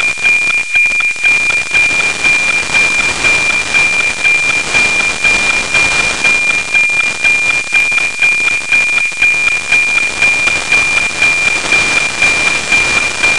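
NOAA 19 weather satellite's APT downlink, FM-demodulated by a software-defined radio: a steady high tone pulsing about twice a second, the typical tick-tock of the image lines. It sits under heavy static hiss, the sign of a weak signal from a low pass near the horizon.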